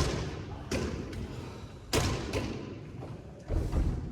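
A handful of dull thuds a second or so apart, each ringing on in a large, echoing hall.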